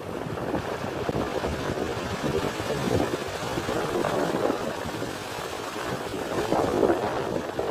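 Ocean surf breaking over volcanic rock ledges and pouring off them, with wind buffeting the microphone: a continuous rushing that rises and falls.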